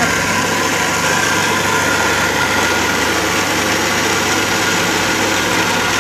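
Electric countertop blender switched on and running at a steady high speed, blending mangoes, milk, ice cream and ice cubes into a milkshake.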